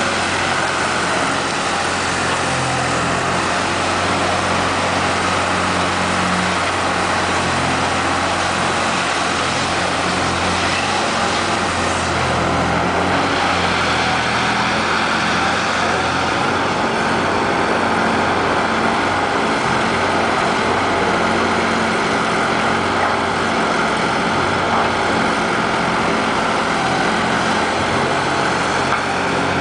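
Engine of a wheeled hydraulic log-grapple loader running steadily as the machine drives and works its boom, the note shifting slightly from moment to moment.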